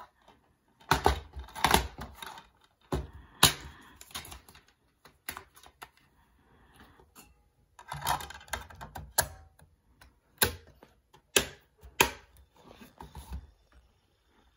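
Handling a DVD: a string of sharp plastic clicks and snaps as a DVD case is opened and the disc is taken out and set into a top-loading DVD player, with quieter rustling between the clicks.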